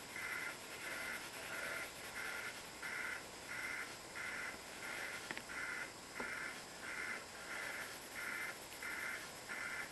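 A colored pencil rasping on paper in steady back-and-forth shading strokes, about three strokes every two seconds.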